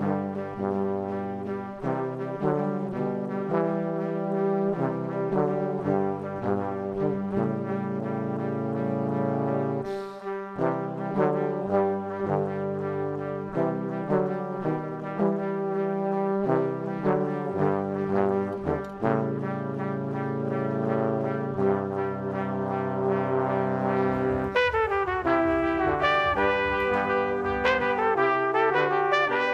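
Background music: an instrumental track of sustained melodic notes that becomes brighter and fuller near the end.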